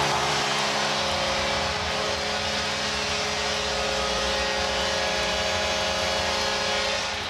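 Hockey arena goal horn sounding as one steady chord, marking a home-team goal, over a cheering crowd; the horn cuts off about seven seconds in.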